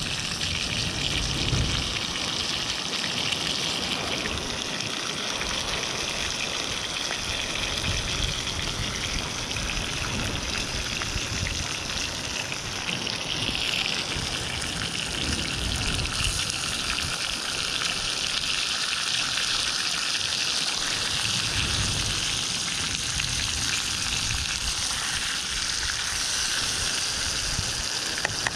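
Fish fillets and curry paste frying in a small pan over a campfire: a steady sizzle, with an uneven low rumble beneath it.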